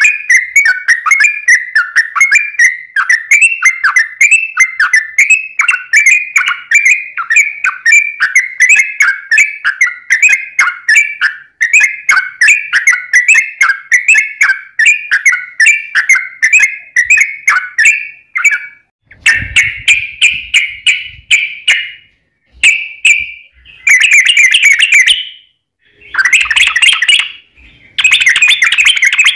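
Yellow-vented bulbul (trucukan) singing a long run of quick, bubbly chirping notes, about four a second. About two-thirds through, the song changes to denser bursts a second or two long with short gaps between them.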